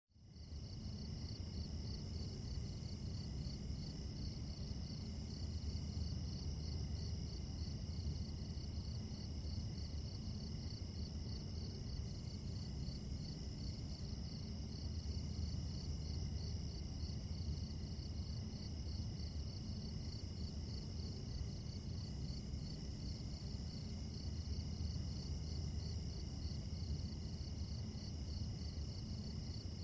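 Chorus of crickets and other insects at night, a steady pulsing trill over a low rumble.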